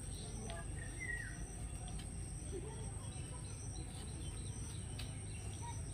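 Outdoor ambience: a steady low rumble with a thin, steady high-pitched tone over it, and a short falling bird chirp about a second in.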